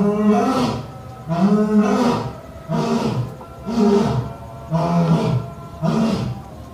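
Lion roaring in a series of short, rhythmic roars, about one a second.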